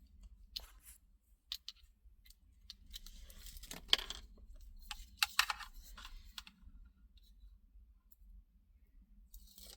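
Hands handling car wiring and plastic parts: scattered light clicks and rustling, busiest in the middle, with one sharper click about four seconds in.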